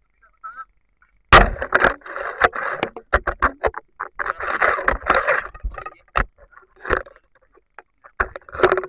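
Water splashing and sloshing in irregular bursts, broken by sharp knocks, as a spear with a giant freshwater prawn on it is lifted out of the water. It starts about a second in.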